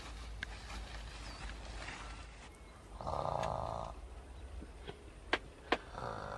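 A person snoring: one long snore about three seconds in and a shorter one near the end.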